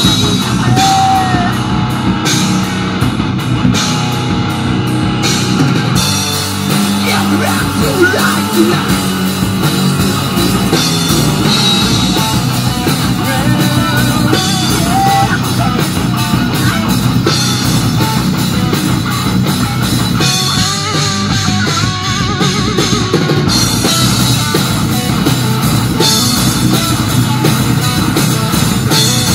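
Live metal band playing loudly: distorted electric guitars, bass and drum kit, with a violin playing a melody over them.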